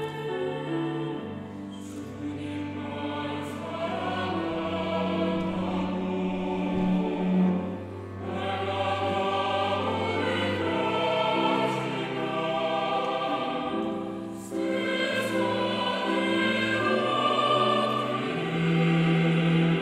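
Mixed church choir of men's and women's voices singing a sacred anthem in sustained phrases, with short breaks between phrases about eight and fourteen and a half seconds in.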